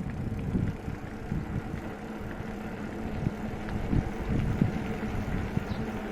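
Low rumble of a bicycle ride, with irregular low knocks and wind buffeting, picked up by a phone's microphone.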